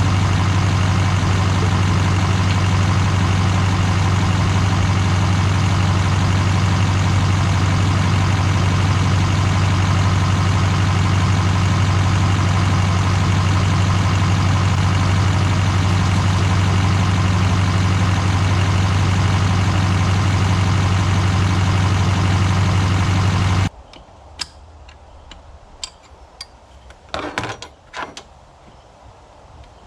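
Newly installed LMM Duramax 6.6-litre V8 turbo-diesel idling steadily at an even pitch. The sound cuts off suddenly about 24 seconds in, leaving a few faint clicks and knocks.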